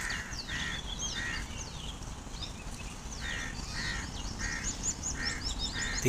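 Birds calling: a short repeated call in runs of two or three, about every half second, over the high chirps and whistles of smaller birds.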